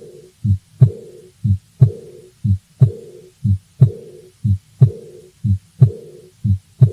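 Heart sounds of aortic regurgitation: paired lub-dub beats about once a second. Each second heart sound is followed by a soft blowing decrescendo diastolic murmur that fades away before the next first sound.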